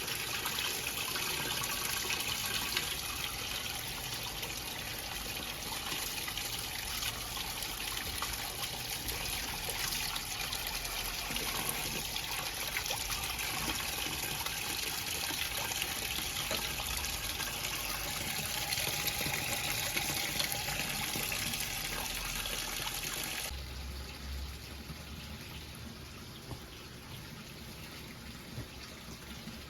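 Electrolux LE06DBD top-load washing machine filling with water: a steady rush of incoming water that cuts off suddenly about 23 seconds in, leaving a quieter low hum.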